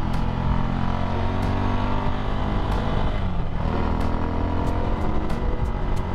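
Ducati Scrambler 803's air-cooled two-valve L-twin engine running under way through a Termignoni exhaust. Its pitch drops briefly about three seconds in, then rises again.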